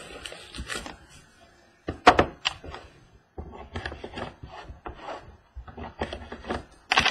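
A small card box being handled on a wooden tabletop: a sharp knock about two seconds in, then scattered clicks and scraping as the box's seal is picked open with a fingernail.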